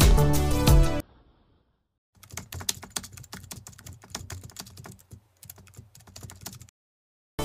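Computer keyboard typing sound effect: rapid, irregular key clicks for about four and a half seconds, matching a caption being typed out. Background music cuts off about a second in, just before a short silence.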